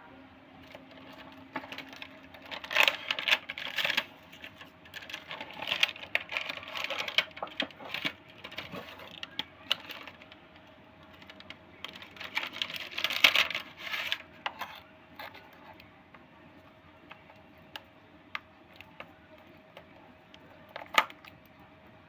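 Handling of small plastic items and packaging during an earbud unboxing: bursts of rustling and sharp clicks in several clusters, then scattered single clicks, the sharpest near the end.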